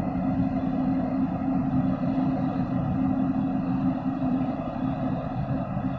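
Container ship's engines running with a steady low drone as the ship sails slowly past close by.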